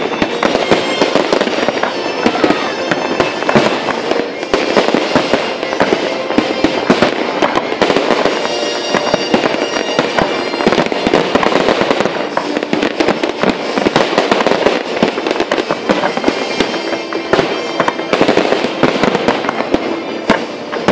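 Fireworks display: a continuous barrage of shell bursts and crackling, many bangs close together.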